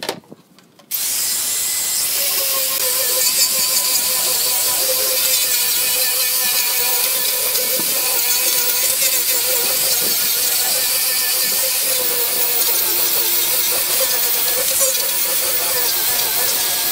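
Electric angle grinder with a sanding disc switched on about a second in, then running steadily as it sands wooden boards: a constant motor whine under a strong hiss of abrasive on wood.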